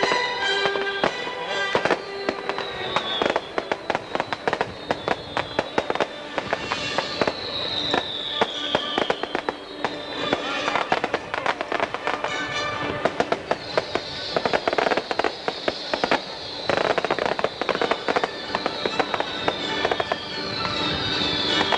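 Fireworks display: a dense run of bangs and crackling, with several falling whistles, over a music soundtrack.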